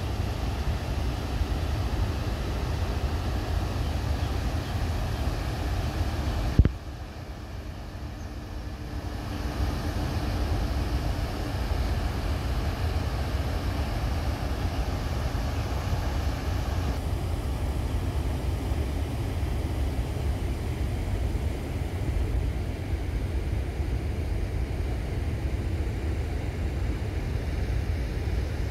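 Wind buffeting the microphone over a steady rush of water pouring over a river weir. About six and a half seconds in there is a sharp bump, after which it is quieter for a few seconds.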